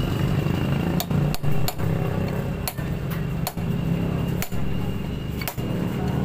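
Hammer striking a steel punch set against a sheared exhaust stud in a motorcycle cylinder head's exhaust port: about seven sharp metallic blows at an uneven pace, over a steady low drone.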